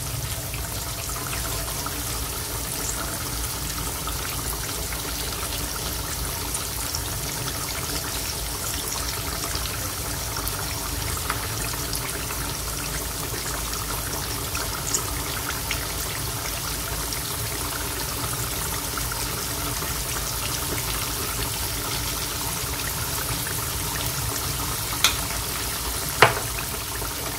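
Olive oil with dried salted fish (tuyo) bubbling and sizzling steadily in an aluminium wok. Two short clicks near the end.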